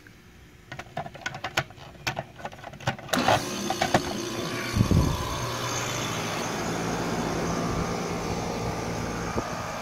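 A few light clicks and knocks, then about three seconds in a central air conditioner's outdoor condenser unit starts up, with a heavy low surge a second or so later, and runs steadily with the compressor humming and the condenser fan blowing.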